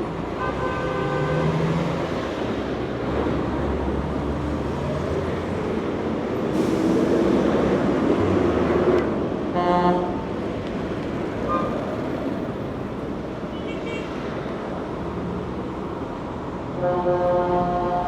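Heavy city street traffic: a steady rumble of passing cars, buses and trucks, with one vehicle passing close and loud in the middle. Vehicle horns sound briefly about half a second in, and again around ten seconds in. A longer horn starts near the end.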